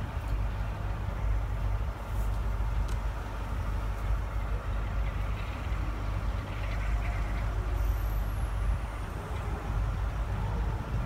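Steady low rumble of a departing steam-hauled train, with a diesel locomotive on the rear, moving away into the distance.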